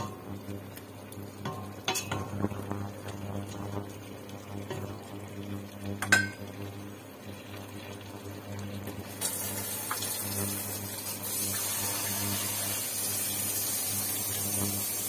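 Wooden spatula stirring chicken in a stainless steel pot, scraping and knocking against the metal, with one sharp ringing knock about six seconds in. From about nine seconds in, a steady high sizzle of the chicken frying, over a low steady hum.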